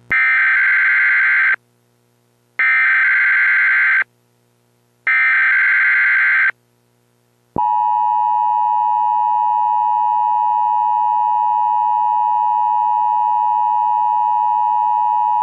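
Emergency Alert System header: three bursts of about one and a half seconds of the SAME digital data signal, each a screechy warble, with short gaps between. Then the steady EAS attention tone for about eight seconds. Together they announce a severe thunderstorm warning.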